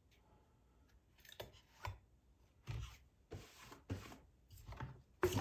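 A two-stroke chainsaw engine being turned over slowly on its recoil starter, about six short strokes spaced roughly half a second to a second apart. Near the end comes a louder run of rapid clicking. The piston is crushing a strand of solder fed into the spark plug hole, which is how the squish clearance is measured.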